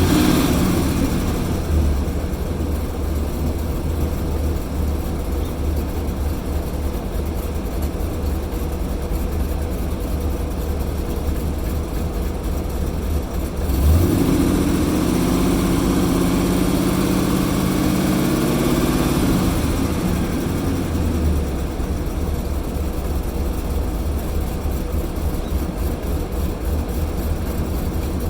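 Engine idling roughly, with an uneven low pulsing. About halfway through, a higher wavering hum joins in for around six seconds, then fades back to the plain idle.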